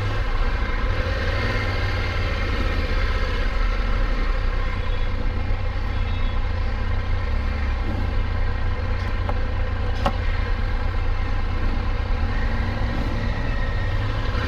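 Triumph Tiger 1200 motorcycle's three-cylinder engine running at steady revs.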